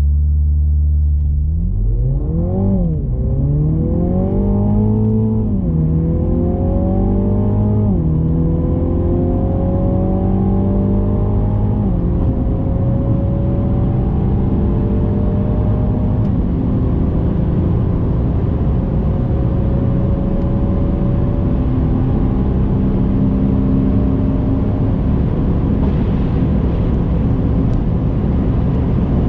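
MINI John Cooper Works GP's 306 hp turbocharged 2.0-litre four-cylinder engine, heard from inside the cabin, launching from a standstill under launch control and accelerating flat out. The engine note climbs and drops back with each quick upshift, about five in the first sixteen seconds. It then rises slowly in the top gears under growing wind and road noise at over 200 km/h.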